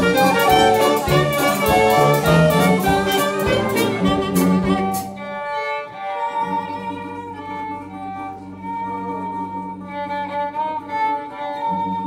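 Jazz band playing with a steady beat until about five seconds in, then a Stroh violin, a horn violin with a nasal sound, plays a solo melody over a steady low held note.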